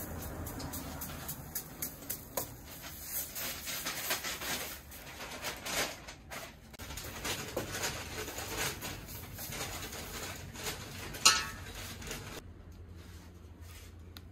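Clinks, taps and scrapes of a ladle and small utensils against a metal batter bowl and an iron griddle as pancake batter is ladled out. One sharp, loud sound comes about eleven seconds in, and it goes quieter near the end.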